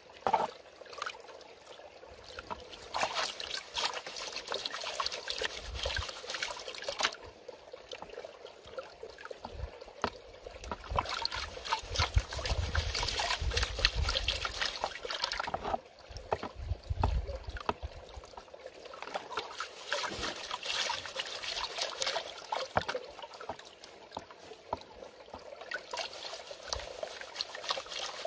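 Water sloshing and trickling as a plastic gold pan is swirled and tipped in a tub of water, washing sand and gravel off the pan. It goes in spells with brief lulls between them.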